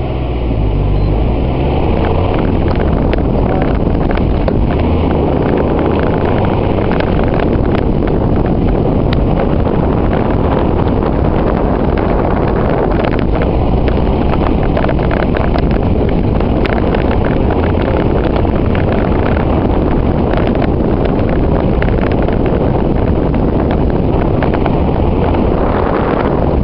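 Car engine working hard as the car is driven flat out over rough grass, heard from inside the cabin, with many small knocks and rattles from the bumpy ground and wind on the microphone.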